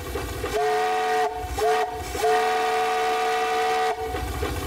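Steam whistle on an antique steam fire pumper's boiler blowing: two short blasts and then one long blast, each sounding two notes at once.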